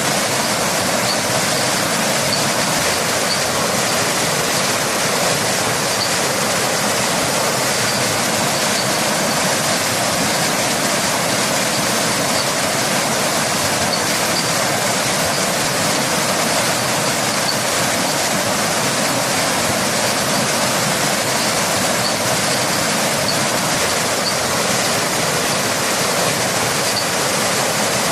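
Waterfall: falling water rushing steadily, with no break or change.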